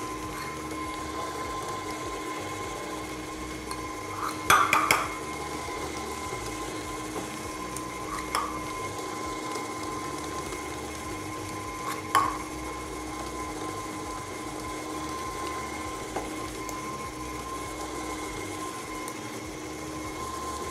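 KitchenAid tilt-head stand mixer running steadily with a constant motor whine, its flat beater whipping butter in a stainless steel bowl. A quick cluster of sharp clinks comes about four and a half seconds in, and single clinks come near eight and twelve seconds in, from a utensil knocking on dishes.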